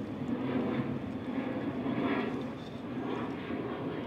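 Aeroplane passing overhead: a steady engine drone that swells a little about two seconds in.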